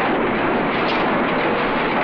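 Loud, steady industrial din of a car assembly line: a dense, unbroken clatter and hiss of plant machinery.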